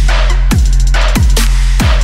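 Background electronic dance music with a heavy, steady bass and a deep kick drum about every 0.6 seconds.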